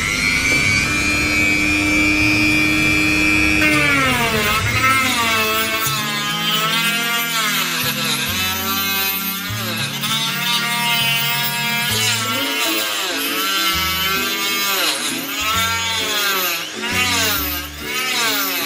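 Mollar MG005 mini grinder spinning a 44 mm toothed circular saw blade. It gives a steady high whine for about four seconds, then it cuts through a PVC pipe: the whine drops and recovers over and over as the blade bites into the plastic under load.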